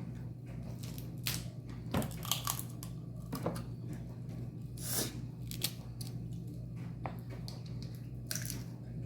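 Seafood-boil crab legs being cracked open and eaten: scattered sharp cracks and crunches of shell, about eight over nine seconds, between chewing.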